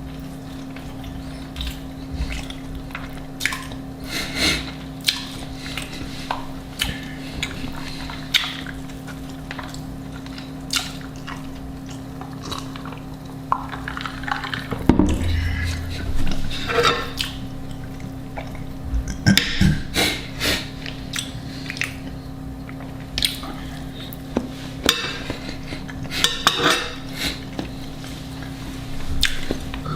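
Eating noises: chewing with scattered clinks of cutlery against dishes, more frequent in the second half, over a steady low hum.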